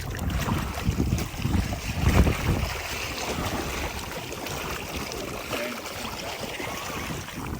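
Wind buffeting the microphone in irregular low gusts over a steady outdoor hiss, strongest in the first two seconds or so, then easing.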